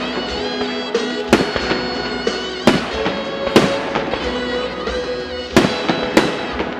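Aerial firework shells bursting, with five loud bangs at uneven gaps of about one to two seconds and a few smaller pops between them. Music plays steadily underneath.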